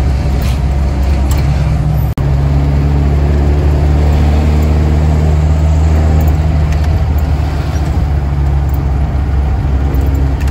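Mitsubishi Colt L300 minibus heard from inside the cabin while driving fast: a loud, steady low engine drone mixed with road noise. The sound cuts out for an instant about two seconds in.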